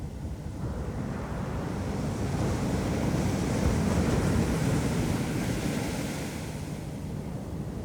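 Ocean surf: a wave washes in, its hiss swelling to a peak about halfway through and fading away, over a steady low rumble of wind on the microphone.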